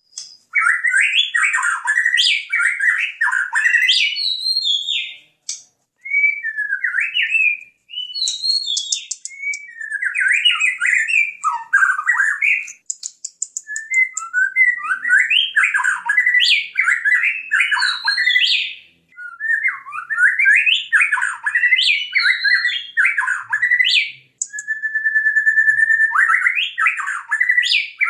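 White-rumped shama singing: loud, varied phrases of rich whistles and fast sweeping runs, delivered in bursts with short pauses between them. About three-quarters of the way in, it holds one long steady whistle before breaking back into rapid phrases.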